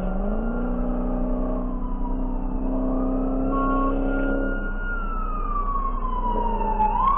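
Emergency vehicle siren in a slow wail: the pitch rises, holds, falls and starts rising again near the end as the vehicle approaches with its lights flashing. A lower steady tone runs underneath.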